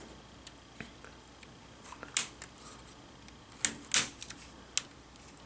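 A handful of sharp plastic clicks and snaps from the laptop's screen assembly being handled and pried apart, the loudest about two seconds in and a close pair just under four seconds in.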